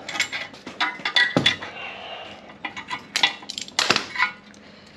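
Steel brake-shoe springs and pliers clinking and scraping against a rusty Toyota 60 series rear drum-brake backing plate as the springs are pried off, a string of sharp metallic clinks that stops a little after four seconds in.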